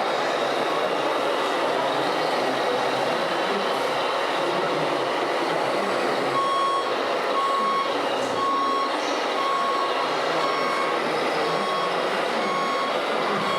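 Reversing beeper of a scale RC truck or construction machine, an even beep about three times every two seconds that starts about six seconds in, over a steady background noise.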